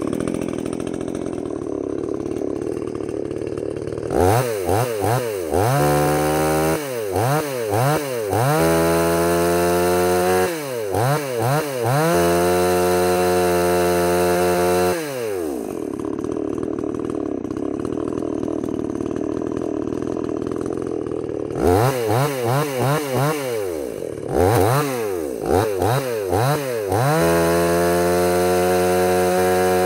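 MTM 62 SX two-stroke chainsaw idling, then revved in a run of quick throttle blips and held at full speed. It drops back to idle about halfway through, then a second run of blips takes it up to full speed again near the end. The chain is being spun free to check that the oiler throws bar oil.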